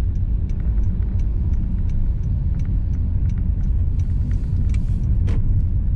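Car cabin noise while driving: the engine and tyres on the road make a steady low rumble, with a single light knock about five seconds in.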